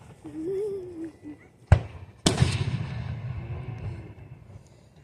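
Aerial fireworks shells bursting: a sharp bang about a second and a half in, then a louder boom with a long rumbling echo that fades over the next two seconds, and another bang at the very end.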